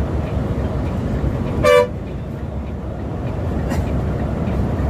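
Steady low engine and road rumble inside the cab of a Volvo B7R diesel coach at highway speed, with one short horn blast about a second and a half in.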